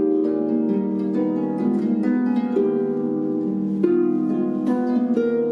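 Harp playing a slow tune: plucked notes ringing on over held chords, with a new note or chord about every second.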